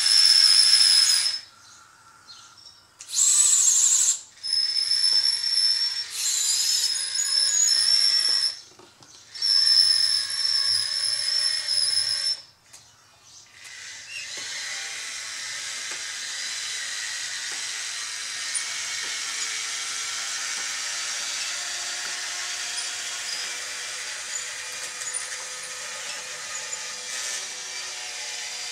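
Electric drive motors and gearboxes of a radio-controlled Bruder CAT D11 bulldozer conversion whining in short bursts that stop and start, once rising in pitch, as it pushes into a dirt pile. From about halfway it runs steadily and more quietly.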